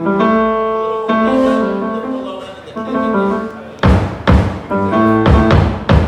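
Keyboard playing held chords that change a few times over about four seconds, then the drum kit comes in with loud hits, joined by low bass notes, in a band sound check.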